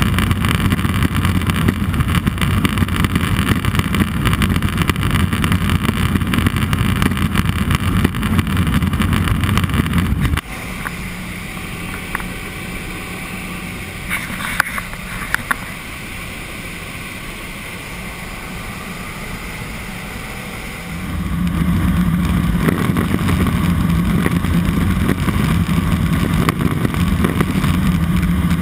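Cabin noise of a Cessna 206 Soloy's turbine engine and propeller, a steady drone. About ten seconds in it drops abruptly to a quieter, thinner level with a few faint clicks, and about twenty seconds in it comes back up to the full drone.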